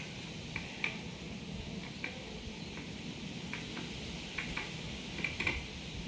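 Peacock's beak pecking grain: scattered sharp taps at irregular intervals over a steady background hiss.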